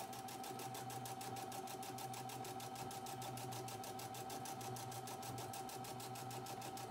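Electric sewing machine stitching a seam through two layers of fabric: a rapid, even needle clatter over a steady motor whine.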